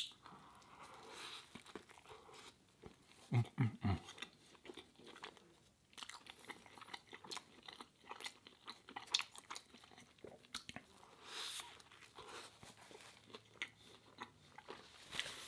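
Close-miked eating of a ciabatta breakfast sandwich: a bite, then steady chewing with many small crisp crunches and wet mouth clicks. A few short, low hums from the eater come about three and a half seconds in.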